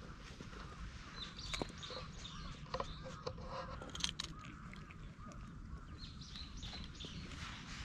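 Birds calling, a series of short arching calls, with a few sharp clicks and knocks close by.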